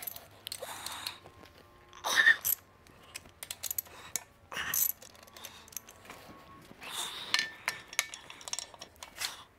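Irregular metallic clicks and clinks of hand tools and engine parts as a connecting rod cap is unbolted and taken off the crankshaft of a BMW B58 engine. There are short bursts of clatter, the loudest about two seconds in with a brief metallic ring.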